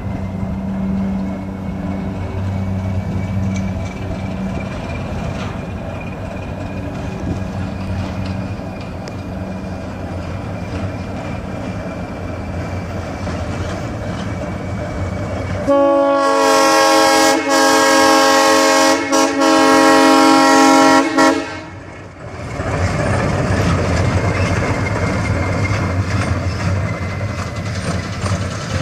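Diesel switcher locomotive running as it moves along the track. About sixteen seconds in, its horn sounds a loud chord of several notes for about five seconds, with two short breaks, and cuts off suddenly. The engine and track noise then carry on.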